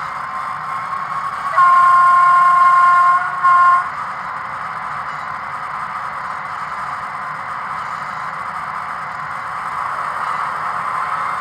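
Sound decoder of a Roco BR 232 'Ludmilla' model diesel locomotive playing its diesel engine sound through the small onboard speaker while the model runs. About one and a half seconds in, the locomotive's horn sounds one long blast of about a second and a half, then a short second blast.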